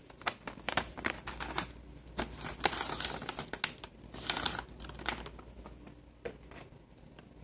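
Plastic bag of dried mealworms being handled: crinkling and rustling with scattered clicks, busiest in the first five seconds and tailing off near the end.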